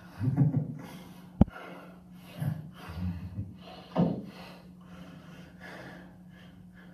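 A man's short breathy non-speech sounds, a handful of separate bursts, played through a TV speaker over a steady low hum. A sharp click about one and a half seconds in.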